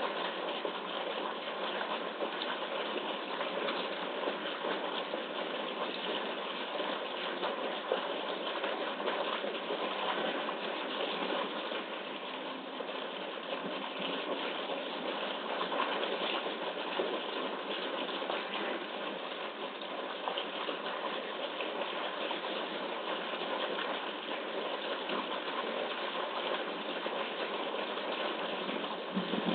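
Steady machinery noise with a rushing quality, even and unchanging, with no separate events standing out.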